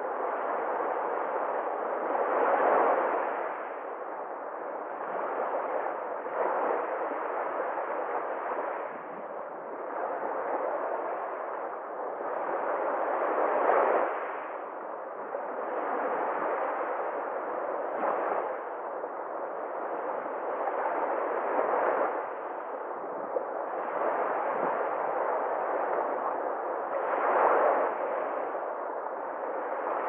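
Small sea waves breaking and washing up a pebbly shore, surging and easing every few seconds.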